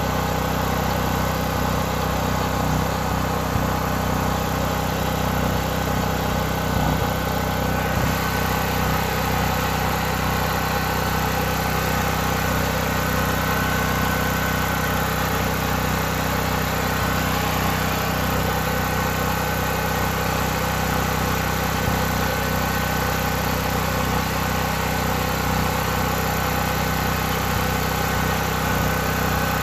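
Westinghouse WGen5300 dual-fuel portable generator's engine running steadily at a constant speed.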